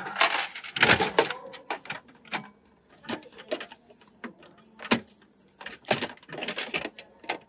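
Coin-operated capsule-toy (gacha) vending machine: its handle is turned with a quick run of ratcheting clicks in the first second or so. Scattered plastic clicks and knocks follow as the capsule is taken out through the flap of the outlet chute.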